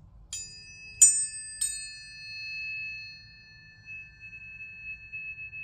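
Tuning forks struck three times in quick succession, each strike a bright ping, then two steady high tones ringing on and slowly fading. These are sound-healing forks tuned to the full moon and planetary frequencies.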